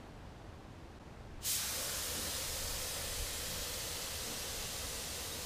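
Air-fed paint spray gun hissing steadily as it sprays, starting abruptly about a second and a half in when the trigger is pulled.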